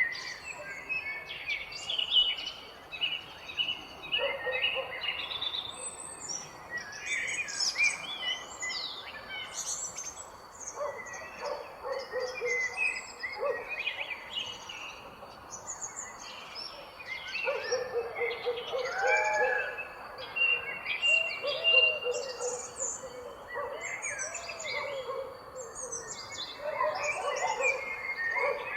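Several birds singing and calling at once, a morning chorus of quick high chirps and trills, joined in the second half by lower warbling calls.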